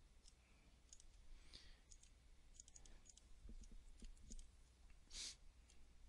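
Faint computer mouse clicks, scattered irregularly while editing on screen, with one short breath-like hiss about five seconds in.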